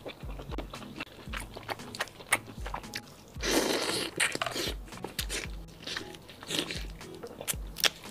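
Close-miked mukbang eating sounds of chili-oil-soaked chicken and shrimp: wet biting and chewing with sharp sticky clicks, and a longer noisy wet burst about three and a half seconds in, over background music with a steady low beat.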